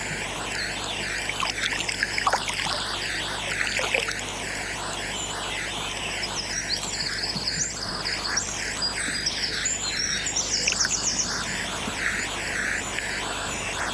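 Electronic background music with a steady, wavering texture, with birds chirping over it through the middle.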